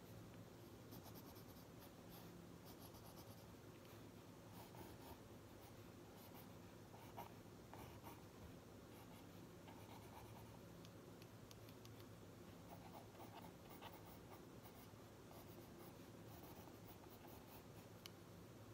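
Ballpoint pen writing on the paper of a spiral notebook: faint, irregular scratching strokes with a few small ticks, over a low steady hum.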